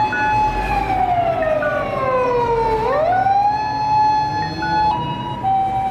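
Japanese ladder fire truck's wailing siren: the pitch holds high, slides slowly down for about two seconds, then rises quickly back up and holds, with a second siren tone coming in near the end.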